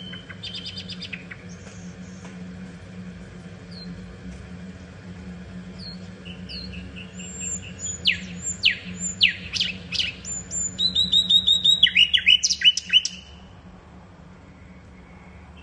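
Common nightingale singing: a few short, scattered high notes, then a loud phrase of rapid repeated notes and steep down-slurred whistles from about halfway through that stops abruptly near the end. A steady low hum runs underneath.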